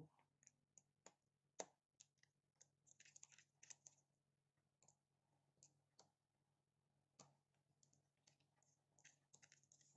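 Faint, irregular small clicks and taps from handling a smartphone and a small precision screwdriver during disassembly, with a cluster of quick clicks about three seconds in and again near the end.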